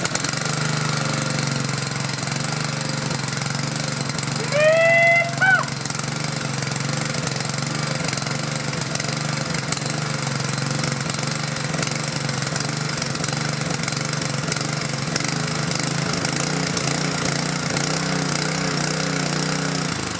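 Honda GX single-cylinder four-stroke engine on a pressure washer running steadily with the choke off, freshly restarted after a valve adjustment on about 60 compression. A short pitched call rises and falls over it about five seconds in.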